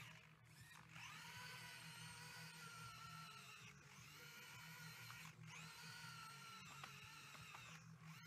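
Faint whine of an RC model tracked skid steer's electric drive motors and gears as it drives and pushes into soil. The whine stops and restarts about three times, each restart quickly rising in pitch. A steady low hum runs underneath.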